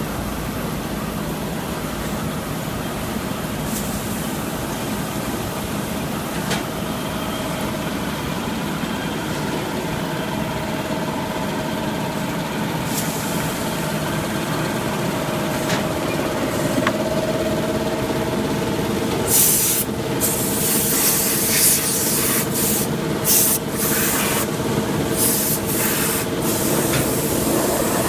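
Automatic salt packing machine running with a steady mechanical hum and a faint steady tone. From about two-thirds of the way through, short sharp bursts of hissing come one after another.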